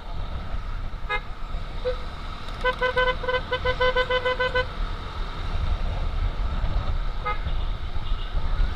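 Motorcycle horn tooted in a rapid string of short beeps, about five a second for two seconds, with single toots before and after, signalling traffic to make way for an ambulance escort. Steady wind and engine rumble underneath.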